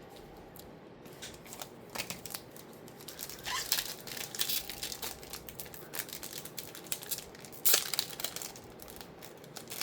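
Trading cards and their packaging being handled: irregular crinkling and rustling, starting about a second in, with a couple of louder crackles.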